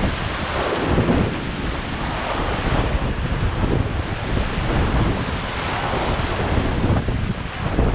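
Rushing whitewater of a river rapid around a paddled raft, with wind buffeting the microphone.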